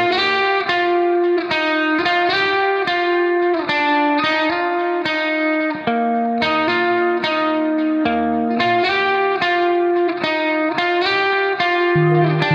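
Background music: a guitar picking out a melody note by note, a few notes a second, at a steady level.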